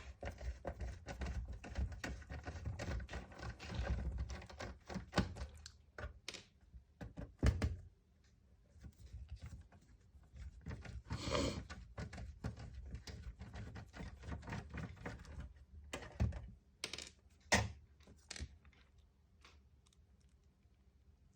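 Small plastic and metal parts of a PlayStation 3 and its screws being handled during reassembly: a quick run of light clicks and taps for the first few seconds, then scattered knocks, a short sliding sound about eleven seconds in, and a couple of sharper clicks near the end.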